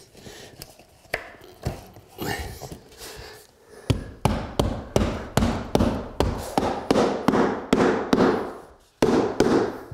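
Mallet tapping an engineered hardwood floor plank to seat it. There is a rapid run of sharp taps, about three a second, starting about four seconds in, with a short pause near the end. Before the taps the plank is being set in place with faint knocks and clicks.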